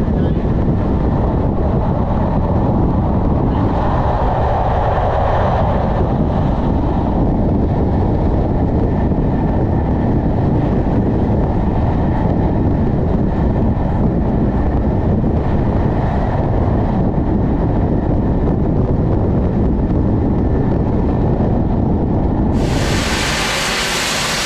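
Steam-hauled train running at speed, heard from a carriage window with a heavy, steady rush of wind on the microphone over the rolling noise. Near the end it cuts suddenly to a loud, steady hiss of steam beside the standing Merchant Navy class locomotive.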